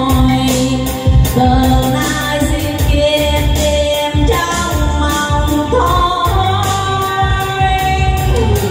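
A woman singing a Vietnamese song into a handheld microphone, holding long wavering notes over a backing track with bass and a steady beat.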